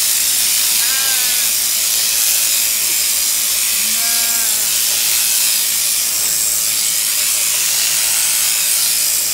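Sheep-shearing handpiece running steadily through a sheep's fleece, a high buzzing hiss. A sheep bleats briefly twice, about one and four seconds in.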